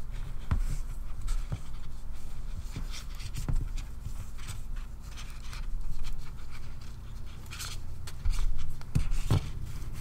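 Nylon paracord rubbing and sliding through fingers as a knot is worked tight: irregular scratchy rustles and small clicks, a few louder scrapes near the end, over a steady low hum.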